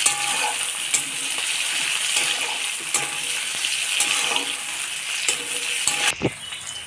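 Onion, tomato and slit green chillies sizzling in mustard oil in a kadai. A spatula scrapes and knocks against the pan as they are stirred.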